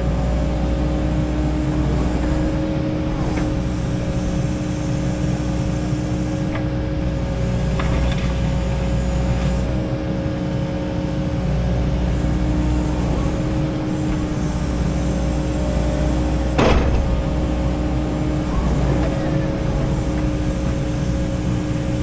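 Kubota KX080 excavator running steadily, its engine drone carrying a constant whine. A brief sharp noise cuts through about three-quarters of the way in.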